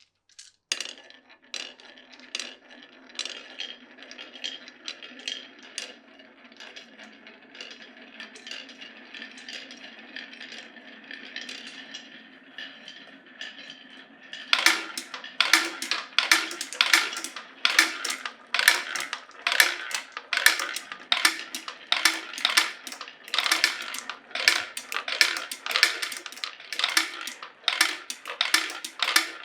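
Glass marbles rolling along a wooden marble run, a steady rolling rumble with scattered clicks. From about halfway the sound turns into a louder, rapid series of wooden clacks, several a second, as the marbles knock their way along the track.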